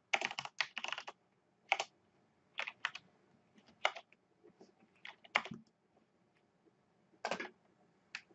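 Typing on a computer keyboard: a fast run of keystrokes in the first second, then single key presses and short clusters every second or so.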